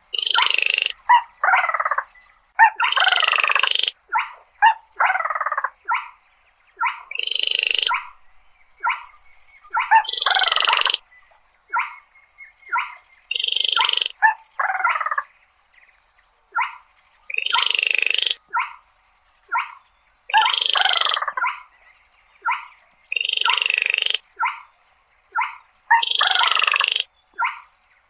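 Crake calling over and over: harsh rasping phrases about a second long alternate with short, sharp single notes, in a steady repeating pattern.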